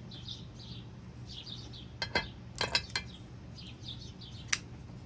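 Birds chirping in quick repeated calls in the background, with a cluster of sharp clicks and clinks about two to three seconds in and one more sharp click near the end.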